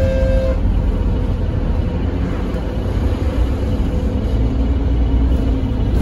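Alexander Dennis Enviro300 bus engine and drivetrain running, a steady low rumble heard from inside the passenger saloon. A steady high whine stops about half a second in, and the engine note rises near the end.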